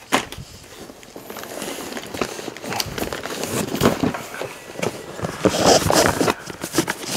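Plastic bags crinkling and cardboard boxes scraping and knocking as kit parts are rummaged out of a cardboard box, with many sharp clicks and knocks, louder in the second half.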